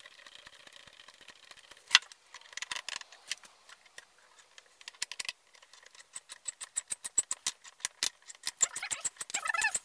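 Clicks, taps and light knocks of tools and small parts being handled while working on a kids' trike wheel, with one sharp click about two seconds in and a quicker run of ticks in the second half. A short squeaky sound comes near the end.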